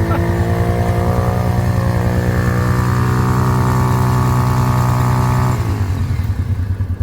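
Off-road vehicle's engine revving hard and held at high revs as it struggles to get through while stuck, then the revs drop off near the end.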